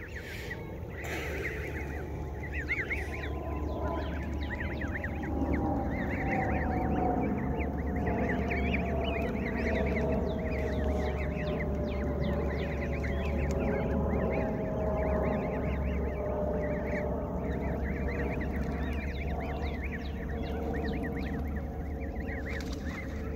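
Canada goose goslings peeping constantly as they feed in a tight crowd. Behind them a low drone slowly falls in pitch through the middle of the stretch.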